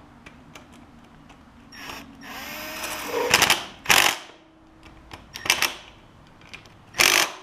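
Cordless power drill with a 10 mm socket driving bolts back into the carburetor mounting of a lawn tractor engine. The drill runs for about a second and a half, then comes in several short bursts as the bolts snug down.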